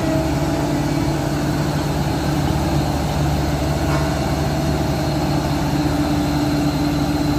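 Diesel engine of a single-drum road roller running steadily as the machine drives slowly along.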